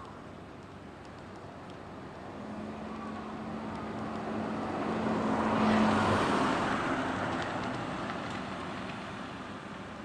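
A car driving past: tyre and engine noise swelling to its loudest about six seconds in, then fading away, with a steady low hum under it.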